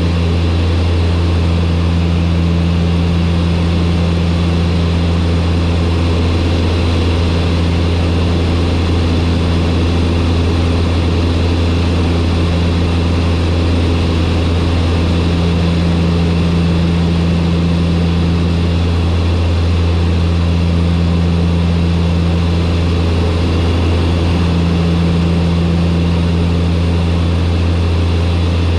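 Turboprop engines and propellers droning steadily, with a deep hum and a slow swelling and fading of the pitch above it every few seconds.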